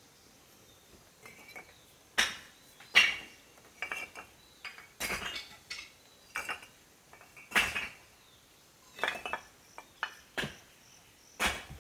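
Irregular sharp clinks and knocks of hard objects struck together, about a dozen spaced unevenly, some ringing briefly.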